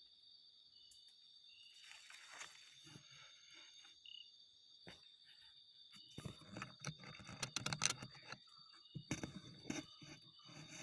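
Insects droning steadily at a high pitch in forest, with irregular bursts of crackling and rustling, like movement through dry leaves and brush, about two seconds in, in a longer spell through the middle, and again near the end.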